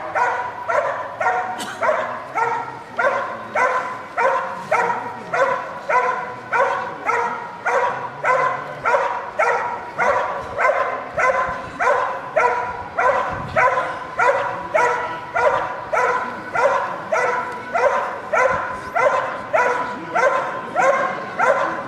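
Belgian Malinois barking at a helper hidden in the blind, a steady, even run of barks at about three every two seconds. This is the hold-and-bark of IPO protection work: the dog has found the helper and is holding him by barking.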